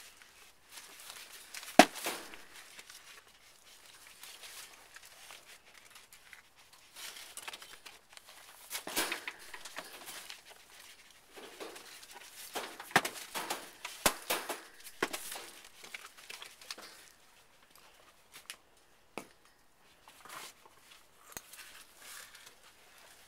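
Two Virginia opossums squabbling through cage wire: irregular bursts of scuffling and crinkling over the plastic cage liner, with a few sharp clicks, the loudest about two seconds in.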